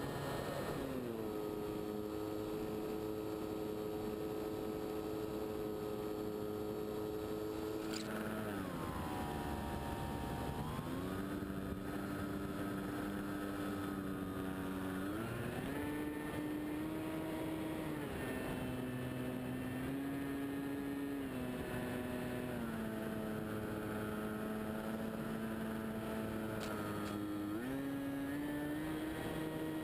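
Onboard sound of a scale radio-controlled de Havilland Tiger Moth model's motor and propeller: a steady drone that falls in pitch as the throttle is eased about eight seconds in, rises again around fifteen seconds in, and climbs once more near the end.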